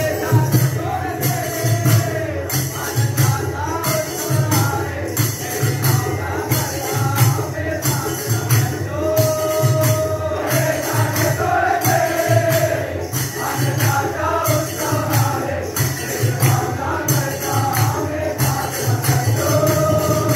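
Live jhakri devotional music: a group of voices singing a melodic line over a steady drum beat and jingling hand cymbals that strike on every beat.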